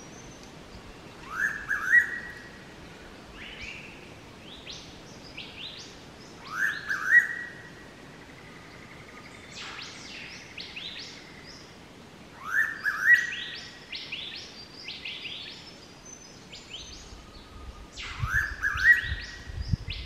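Noisy pitta giving its loud two-note 'walk-to-work' call four times, about every five to six seconds, each note rising sharply. Other birds chirp with short high notes between the calls, and a few low thumps come near the end.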